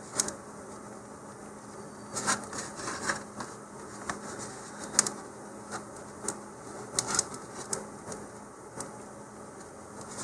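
Light handling sounds: about a dozen short, scattered scrapes and taps as a paper rocket body tube and a fin are shifted on a cutting mat and marked with a pencil, over a faint steady hum.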